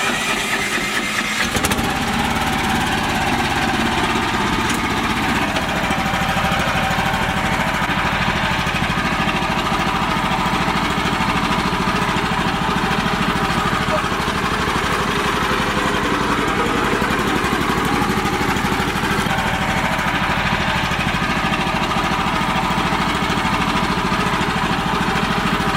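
Tractor engine picking up in the first second or two, then running steadily.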